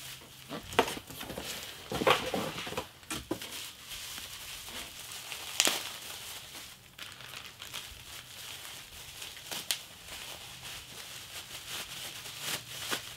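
Plastic packaging crinkling and rustling as toy parts are unwrapped by hand, with irregular sharp crackles, the loudest about two and six seconds in.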